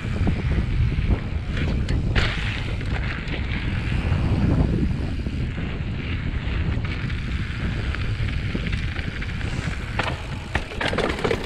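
Wind buffeting the microphone of a camera on a moving mountain bike, over a low rumble from the tyres. Near the end, a run of sharp rattling knocks as the bike starts onto rough stone steps.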